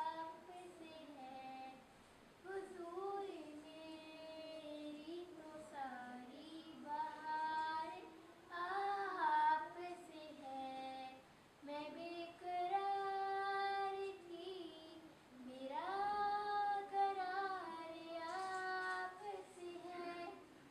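A girl singing a naat solo and unaccompanied, in long held, ornamented phrases with brief pauses between them.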